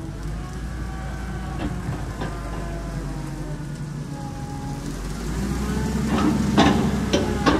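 An engine running steadily at a low pitch, with several sharp metallic clanks near the end.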